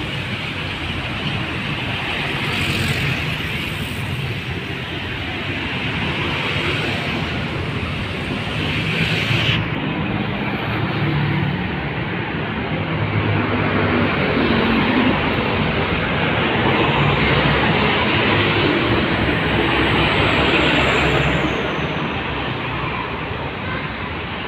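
Road traffic passing close by: truck, car and motorcycle engines and tyre noise, swelling and easing as vehicles go past. About ten seconds in the highest hiss drops away suddenly.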